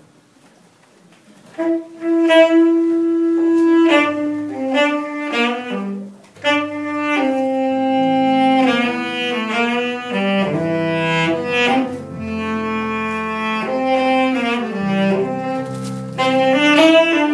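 Solo saxophone playing a slow worship melody in long held notes, coming in about a second and a half in. A low accompaniment joins under it about six seconds in.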